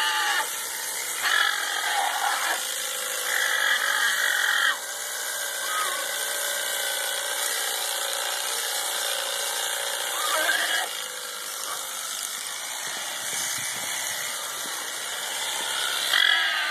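Electric shearing handpiece running steadily as it clips the fleece from an alpaca's neck and head.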